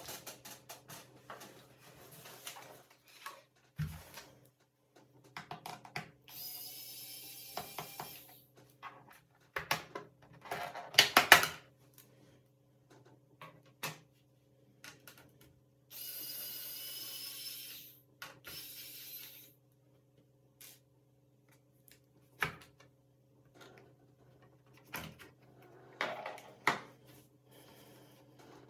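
Clicks, taps and knocks of small tools and plastic laptop parts being handled during disassembly, with a cluster of sharper clicks about ten seconds in. Three short high whirring hisses of about two seconds each are heard, two near the start and middle and one just after.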